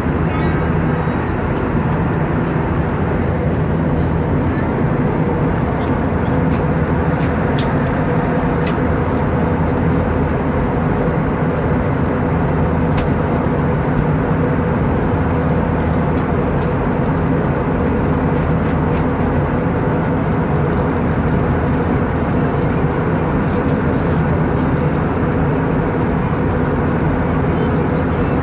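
Steady cabin noise inside an Airbus A320 in flight: an even roar of the engines and airflow, with a few steady low hum tones running under it.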